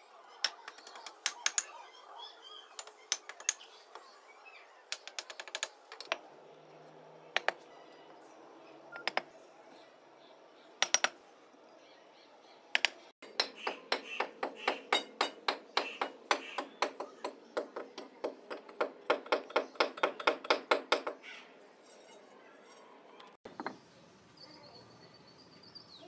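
Brick hammer and trowel tapping and knocking on clay bricks as they are laid and bedded in mortar. Scattered sharp clicks give way to a long run of quick ringing taps, about five a second, in the middle stretch.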